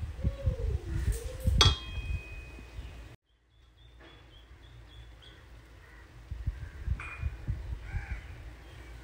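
Wooden spatula stirring and scraping cooked vegetable rice in a rice-cooker pot, with soft uneven thumps. There is one ringing clink about two seconds in, as the spatula hits the pot. The sound cuts out for about a second a few seconds in, then the stirring goes on more faintly.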